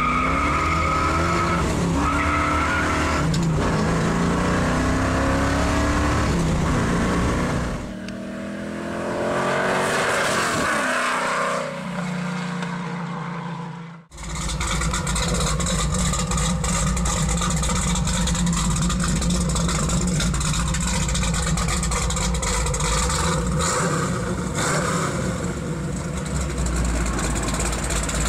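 Muscle car engine accelerating hard through the gears, heard from inside the car, its pitch climbing in several rising sweeps. After a brief break, a muscle car engine runs steadily.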